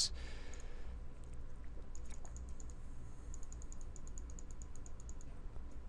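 Faint clicking of a computer mouse and keyboard at the desk, with a quick run of small ticks about halfway through, over a low steady hum.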